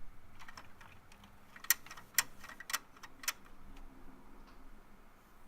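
Small sharp clicks of a die-cast toy car knocking against the bent plastic holding arms of a Hot Wheels Tune-Up Tower treadmill, the car failing to go on. Four louder clicks come about half a second apart near the middle, with fainter ticks around them.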